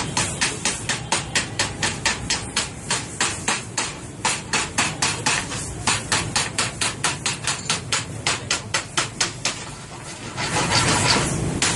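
Rapid, regular hammer blows, about five a second, which stop near the end. A short rush of hissing noise follows.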